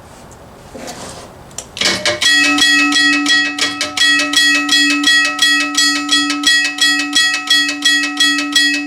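Union Switch & Signal teardrop railroad crossing bell starting up about two seconds in, its hammer striking the gong in a fast, even rhythm of about three strokes a second, each stroke ringing on into the next.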